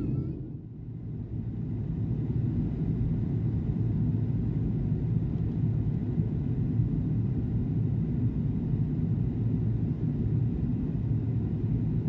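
Steady low rumble of an airliner cabin in flight: jet engine and airflow noise heard from a window seat over the wing.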